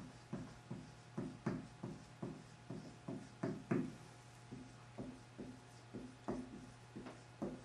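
Dry-erase marker writing on a whiteboard: a quick, uneven run of short strokes, about three a second, as letters are written out.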